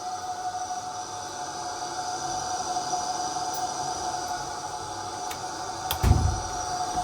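Bathroom duct ventilation fan running with a steady high-pitched whine, the abnormal noise that calls for the fan's replacement. A dull thump about six seconds in.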